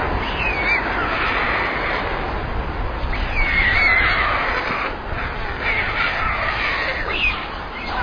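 Young white storks in the nest giving short, wavering calls in three brief bouts over a steady rushing background noise.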